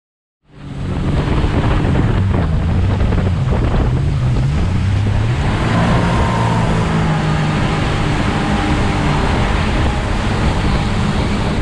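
A 250-hp outboard motor running at speed as the boat travels up the river. Wind buffets the microphone and water rushes past the hull. The engine note wavers up and down in the first few seconds, then holds steady.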